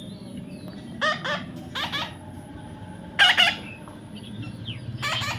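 A young parrot giving four short, harsh squawks, a second or so apart.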